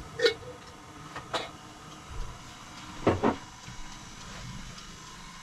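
A few short knocks and clacks of things being handled: one just after the start, another about a second and a half in, and a quick double knock about three seconds in, typical of cupboard doors or kitchen items being set down.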